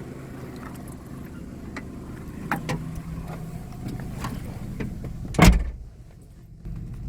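Great Wall Hover H5's Mitsubishi petrol engine idling evenly with no knock, running on a new hydraulic timing-belt tensioner. A few light clicks and one loud thump about five and a half seconds in.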